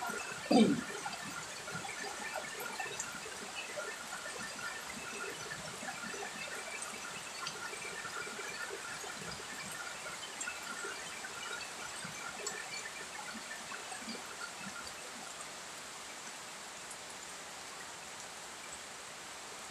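Steady rain falling on garden plants, with runoff pouring from a metal roof edge. A brief louder low sound drops in pitch about half a second in.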